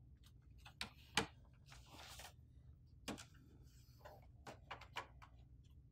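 Sheets of plain paper being loaded into the input tray of an HP DeskJet 3634 printer: faint paper rustling and a few light plastic clicks and taps, the sharpest about a second in.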